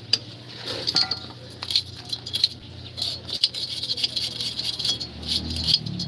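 Steel wire brush scrubbing the hub and shoes of a Toyota HiAce drum brake: a scratchy rasping in quick, uneven strokes a few times a second, with light metallic clinks.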